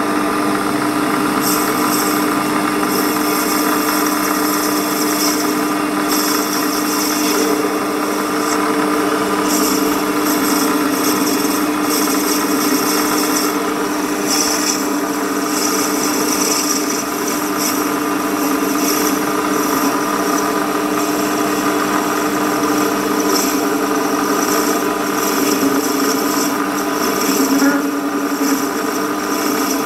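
Warco WM180 bench lathe running at speed, a steady whine from its motor and drive, with on-and-off high hissing as a radius form cutter shaves the end of a spinning brass bar.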